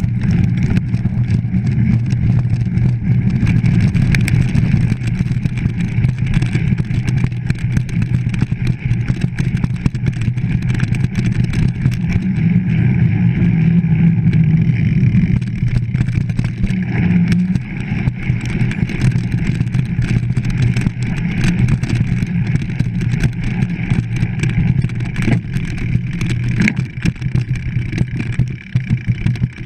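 Mountain bike ridden over dirt, gravel and sand, heard through an action camera mounted on the rider or bike: steady rumble of wind and tyre noise with constant small rattles and knocks from the bumpy track.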